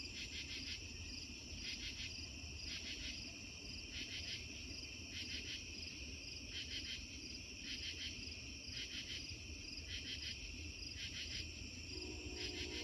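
A steady, shrill chorus of insects chirping, pulsing about once a second, over a low steady rumble that matches the freight train still passing in the distance. Near the end, a distant train horn starts, the Amtrak train sounding its horn.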